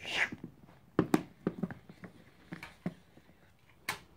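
Plastic toy knife chopping Play-Doh against a plastic bin lid: light, uneven taps and knocks, about seven in four seconds.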